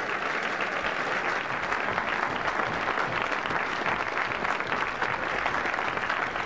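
A large audience applauding steadily: dense clapping from many hands.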